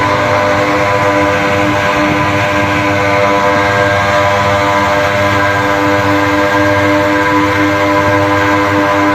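Two-stroke Suzuki pickup engines running flat out at racing speed, a loud, steady engine note that holds one pitch without rising or falling.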